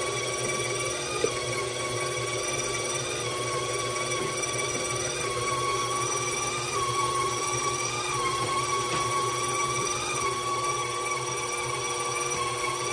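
KitchenAid bowl-lift stand mixer running with its dough hook kneading a stiff bread dough: a steady motor and gearbox whine over a low hum, its pitch wavering slightly as the hook drags the dough around the bowl.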